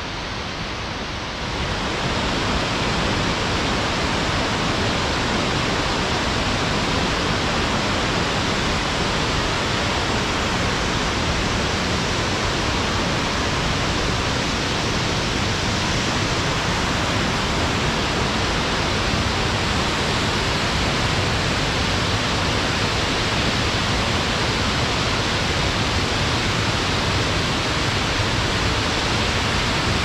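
Steady rushing roar of a waterfall, a little louder from about a second and a half in.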